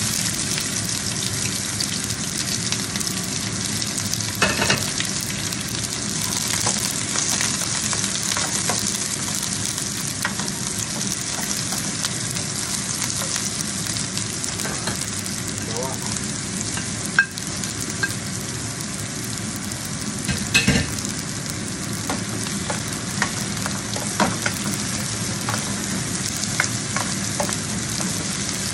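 Sliced red onion, joined partway through by chopped garlic, sizzling in hot oil in a nonstick frying pan and stirred with a spatula. A steady hiss of frying, with a few sharp clicks of the spatula against the pan.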